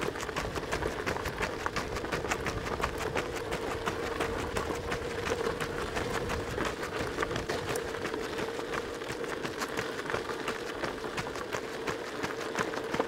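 A group of runners' footsteps: a quick, even patter of many footfalls, over a steady hum.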